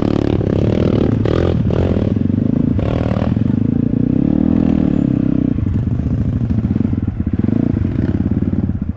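A 250cc dirt bike's engine running at low speed, its revs rising and falling as it picks its way up a rocky trail. Several sharp knocks and rattles from the bike jolting over rocks come in the first few seconds.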